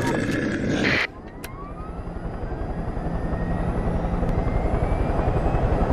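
Helicopter sound effect: rotor chop with a steady beat, slowly growing louder, under a turbine whine that rises slowly in pitch. In the first second, loud gunfire noise runs on and cuts off abruptly.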